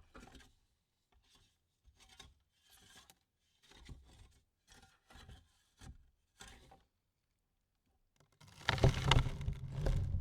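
A series of faint, short rubbing noises, then a much louder stretch of rubbing and scraping that starts near the end and lasts about two seconds.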